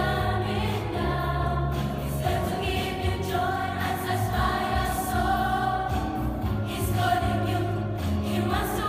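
Ugandan children's choir singing together in unison and harmony, with a steady deep bass part underneath.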